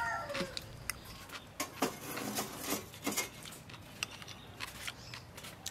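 Metal spoon scraping and clicking against a ceramic plate of rice in scattered short taps. A rooster's crow trails off at the very start.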